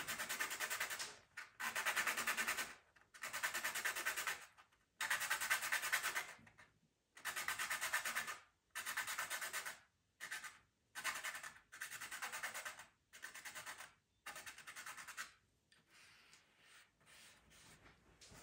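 A pastel pencil being sharpened: about a dozen strokes, each up to a second or so long with short pauses between them, then fainter strokes for the last few seconds.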